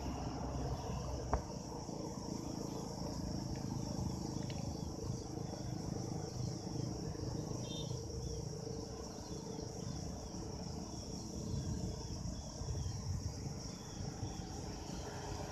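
Steady high-pitched trill of crickets or other insects, over a low wind rumble on the microphone, with a single sharp click about a second in.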